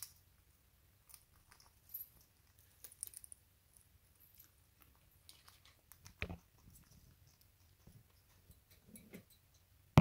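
Faint, scattered clicks and nibbling taps of an Indian ringneck parakeet's beak and feet on a wire cage. A duller thump comes about six seconds in, and a sharp knock at the very end is the loudest sound.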